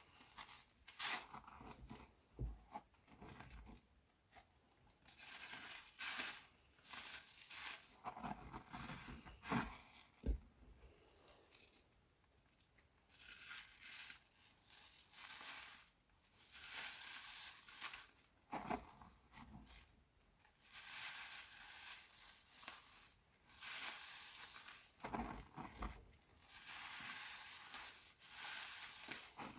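Soaked glycerin soap plates being worked by hand while washed: wet, crackly rubbing and squishing in irregular bursts, with a few sharp clicks.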